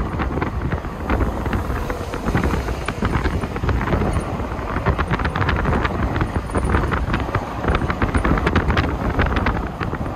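Wind buffeting the microphone over the steady road and engine noise of a moving car, with many short crackles throughout.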